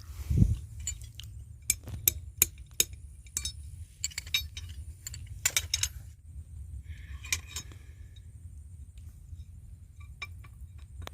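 Sharp, separate metallic clinks and taps, a dozen or so spread irregularly over several seconds after a single dull thump near the start, over a steady low rumble.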